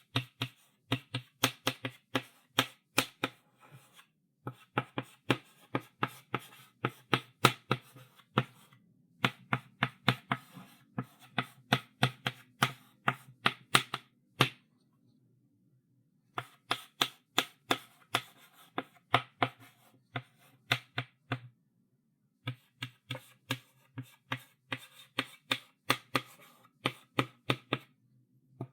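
Chalk writing on a blackboard: runs of quick taps and short strokes of the chalk against the board, broken by brief pauses, with a longer pause of about two seconds around the middle.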